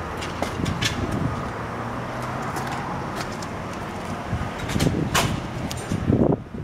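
Rear cargo door of a Sprinter van unlatched with a sharp click about five seconds in and swung open. The clunking runs for about a second and a half, over a steady background rumble.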